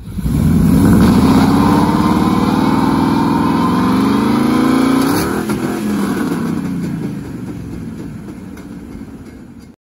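1968 GMC pickup doing a burnout: the engine revs climb steadily with the rear tyre spinning, then about five seconds in there is a sudden break and the revs fall away as the engine winds down. This is the burnout in which the truck's Dana 44 rear differential broke.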